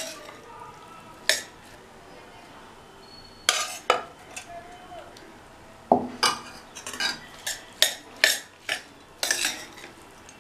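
A metal spoon scraping and knocking against the side of a pressure-cooker pot as cooked rice is stirred together with tamarind paste. The strokes are irregular, about a dozen, and come more often in the second half.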